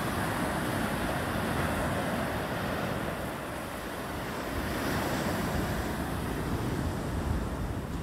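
Atlantic Ocean surf: waves breaking and foam washing up the beach in a steady rushing wash that eases a little about halfway through and then builds again.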